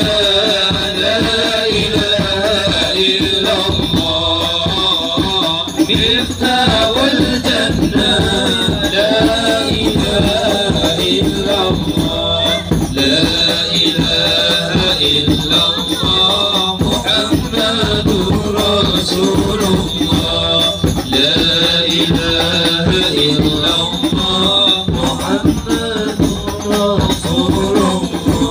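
A group of men singing a devotional song together over an amplified sound system, with a steady percussion rhythm. A steady high-pitched whine sits under it throughout.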